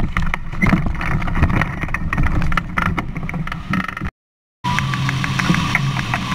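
Wind buffeting the microphone of a paraglider's action camera during launch, with rough rushing and scattered knocks from the rig. About four seconds in the sound cuts out abruptly for half a second, then the wind noise returns under a steady tone with a light beat, the start of background music.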